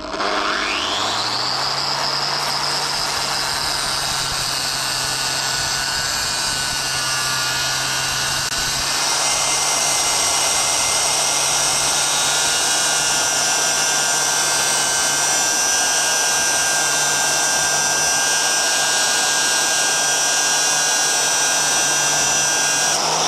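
Angle grinder spinning up with a rising whine, then running steadily at a high pitch, a little louder from about nine seconds in, as it grinds at rusted nuts and bolts.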